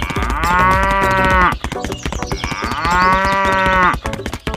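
Cow mooing twice: two long calls of about a second and a half each, the pitch rising and then falling.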